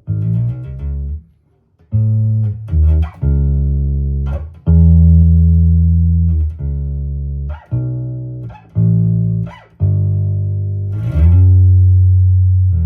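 Electric bass guitar played solo: a series of plucked, sustained low notes with short gaps between them, and a slide in pitch between notes near the end.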